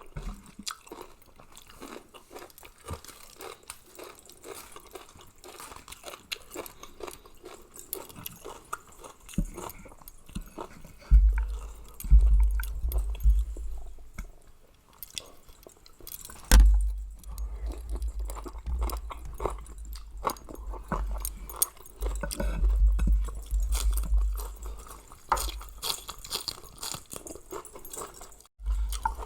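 Close-up chewing and crunching of a pounded mixed-seafood salad, with many small wet mouth clicks. From about eleven seconds in, deep low rumbles come and go under the chewing.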